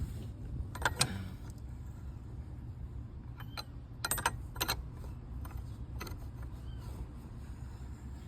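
A small wrench turning the screw of a steering-column lock plate compressor tool, backing off its tension. It gives scattered metallic clicks and small clanks, a few at a time.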